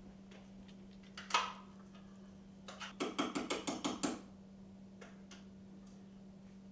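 Kitchen clatter of things handled at a counter: one sharp knock, then a quick run of about eight clicks and rattles lasting a second, over a low steady hum.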